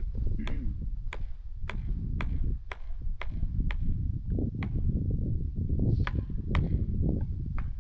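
Repeated sharp metallic strikes, about two a second, typical of a felling wedge being hammered into the back cut to tip a tree against its lean. A low steady rumble runs underneath.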